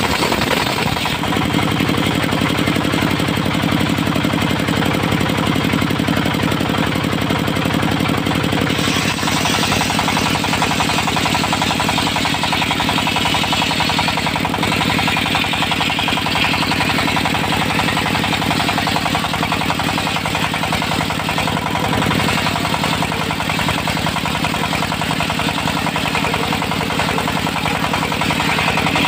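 Engine of a locally built mobile circular sawmill running steadily with a fast knocking beat. About nine seconds in, the sound changes, with more hiss higher up.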